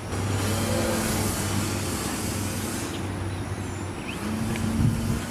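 Electric motor and propeller of a radio-controlled Dynam 42-inch biplane in flight: a steady buzzing drone whose whine comes and goes twice as the plane manoeuvres.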